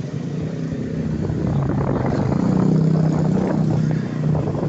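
Motor vehicle engine running with a steady low hum, growing louder through the middle and easing off near the end.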